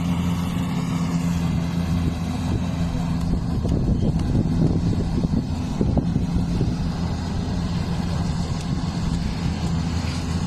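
An engine running steadily at a constant speed, with a stretch of irregular rattling between about four and six seconds in.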